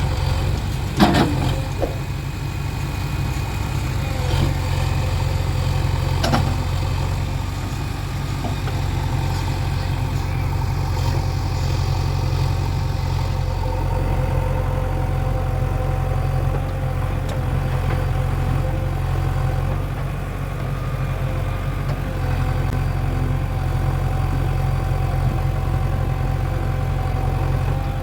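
Heavy diesel engine running steadily, with a sharp knock about a second in and lighter knocks around four and six seconds.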